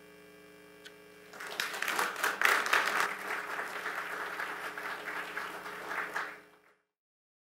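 Audience applauding, starting about a second and a half in and cut off suddenly near the end.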